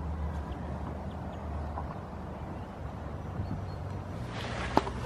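Outdoor microphone rumble with faint handling ticks as a goat nuzzles the camera at close range, and one sharp knock near the end.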